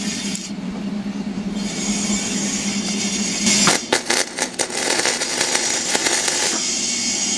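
A small flux-core MIG welder strikes an arc and lays a short weld: the arc crackles for about three seconds, starting about three and a half seconds in, over a steady low hum. It is the first test of a borrowed welder, and it does strike an arc.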